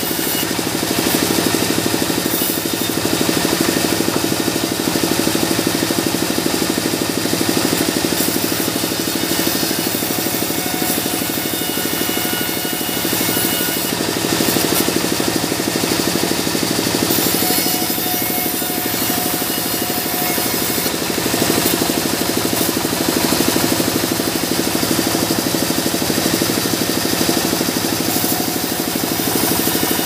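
Sawmill saw machine running steadily while cutting a mahogany plank fed through by hand, a continuous loud mix of motor hum and sawing noise.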